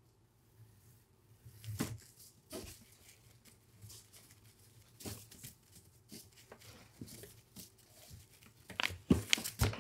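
Cord being untied from a parcel wrapped in brown kraft paper: soft scuffs and rustles as the cord is pulled and slides over the paper. Louder, denser paper rustling starts near the end.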